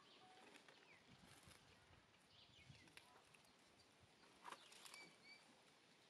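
Near silence: faint outdoor ambience with a few faint high chirps and a soft click or two a little past the middle.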